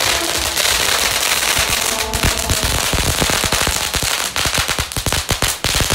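A string of firecrackers going off in a fast, dense crackle of many bangs a second, the reports growing sharper and more distinct past the middle.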